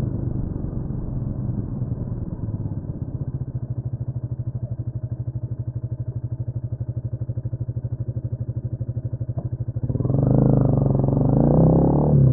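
Honda CMX250 Rebel's single-cylinder engine ticking over with an even, rapid pulse for several seconds. About ten seconds in it gets louder and rises in pitch as the bike pulls away under throttle.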